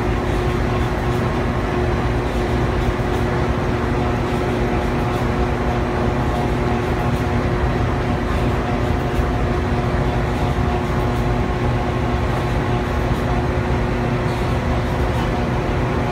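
Automatic five-colour flexo printer slotter die cutter running at speed as printed corrugated carton boards feed through: a loud, steady industrial rumble with a constant hum.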